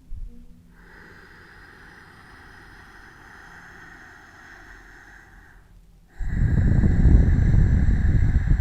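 Ujjayi breathing close to the microphone: a long, soft hissing breath drawn in through the nose with the throat slightly constricted. About six seconds in, a much louder breath out follows, with the breath rumbling on the microphone.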